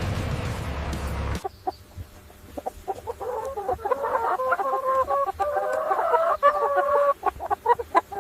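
Chickens clucking: a string of short, repeated calls that overlap and grow busier toward the middle. A loud steady noise cuts off abruptly about a second and a half in, just before the calls begin.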